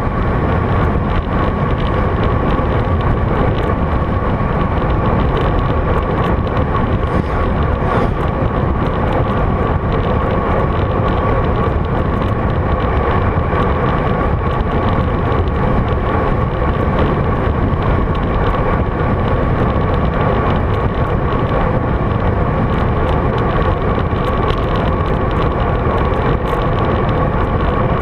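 Steady rush of wind on the camera microphone with road noise from a road bike rolling along, under a faint steady hum.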